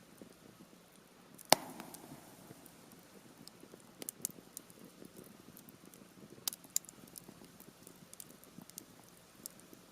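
Campfire of half-dried Japanese cedar wood crackling quietly, with one loud, sharp pop about a second and a half in and a scattering of smaller pops after it. The popping comes from the wood being only partly seasoned.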